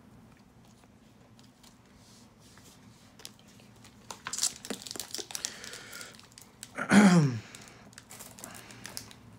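Foil booster-pack wrapper crinkling in short irregular bursts from about four seconds in. About seven seconds in there is a brief voice sound with falling pitch.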